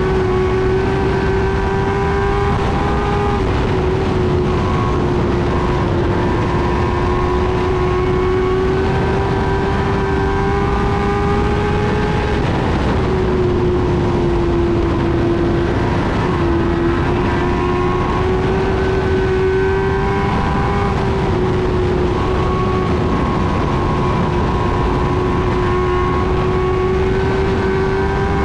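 Race car engine running hard at high revs, heard from inside the cockpit, its pitch climbing slowly and then dropping briefly twice around the middle as the driver lifts and gets back on the throttle, over a steady rushing noise.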